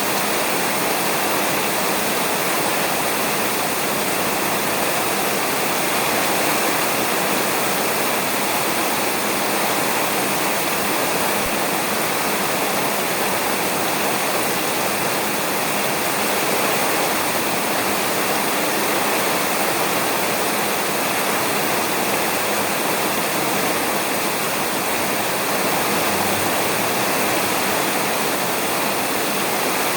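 Rain falling steadily on a roof: an even, unbroken hiss with no thunder.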